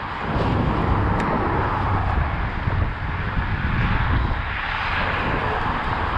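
Wind buffeting the microphone over the steady hiss and rumble of car traffic on the bridge, the hiss swelling a little about four to five seconds in.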